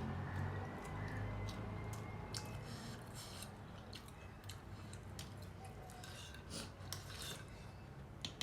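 Chewing and crunching of food close to the microphone, with scattered light clicks and short rough bursts over a steady low hum.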